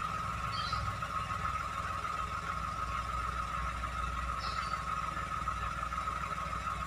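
Toyota Agya car engine idling steadily: an even low rumble with a steady high-pitched tone running over it.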